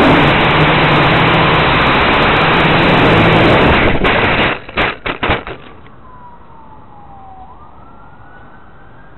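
Blade 180QX quadcopter's motors and propellers running hard, heard from on board as a loud, steady rush of prop wash while it flips. Four and a half seconds in, a quick run of knocks as it crashes and tumbles into the grass, then the motors stop. Only a quiet hiss and a faint tone that slides down, then jumps back up, remain.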